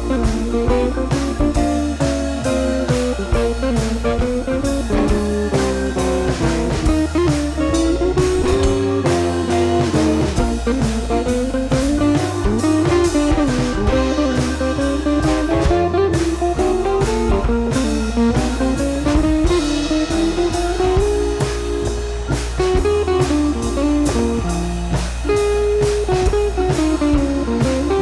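Background music: a blues-style guitar tune over a drum kit and bass, with a steady beat.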